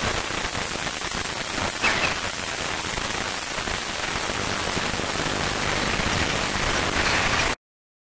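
Steady outdoor hiss with no clear event in it, cutting off abruptly near the end.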